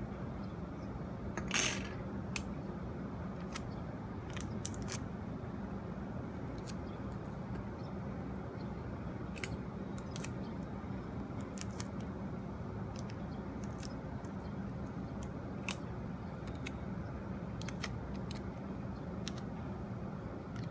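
Light clicks and taps of metal tweezers and fingertips on a clear sheet while leaves are pressed onto sticky tape, with a brief scraping rustle about a second and a half in. A steady low hum runs underneath.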